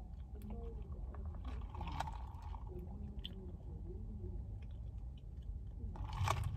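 Faint mouth sounds of someone tasting a sip of an iced drink: small lip smacks and clicks over a low steady rumble inside a car. A short, louder rustle near the end.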